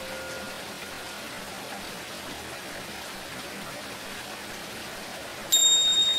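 Steady hiss of water under the fading ring of a Tibetan singing bowl. About five and a half seconds in, a pair of tingsha cymbals is struck once, giving a bright, very high ring that carries on.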